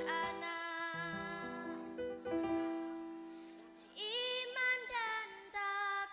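Children's choir singing with instrumental accompaniment. A long held chord fades away in the middle, and a new sung phrase begins about two-thirds of the way through.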